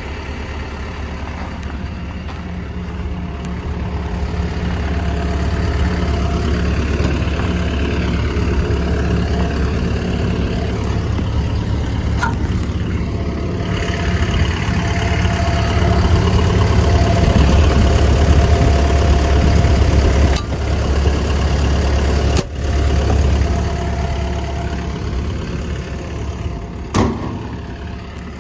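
Komatsu PC170LC-10 excavator's diesel engine running, its note swelling twice as it comes under load, with a higher whine coming and going over it. A few sharp clicks or knocks sound through it.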